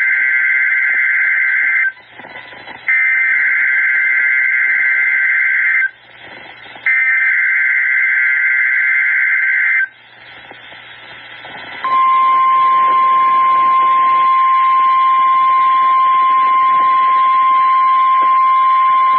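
NOAA Weather Radio alert test: three bursts of SAME digital header data, the first already under way, each a harsh buzzing screech about three seconds long with a second's gap between. About two seconds after the last burst, the steady 1050 Hz warning alarm tone starts and holds.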